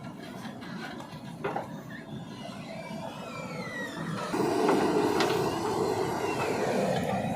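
JCB 3DX Super backhoe loader working: machine noise with squeals that rise and fall in pitch, getting clearly louder about four seconds in.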